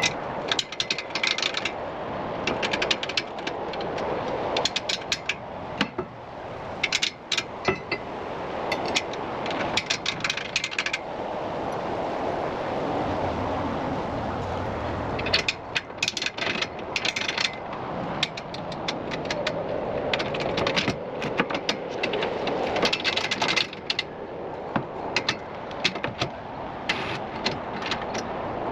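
Clusters of sharp metallic clicking and rattling, over and over, from metal parts being handled and fitted on a tool rack, over a steady background noise that swells and fades.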